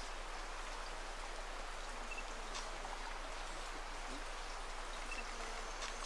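Steady watery hiss of forest ambience, with a few faint ticks and two brief high chirps about three seconds apart.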